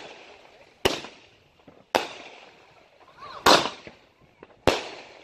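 Consumer multi-shot firework cake firing: aerial shells bang four times, about a second apart, each bang trailing off briefly, the third the loudest.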